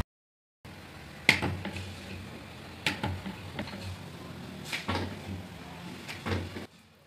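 Kitchen utensils handled while making paratha: a wooden rolling pin, wooden rolling board and steel bowls giving about half a dozen sharp knocks and clatters, the loudest about a second in, over a low steady background noise that drops away shortly before the end.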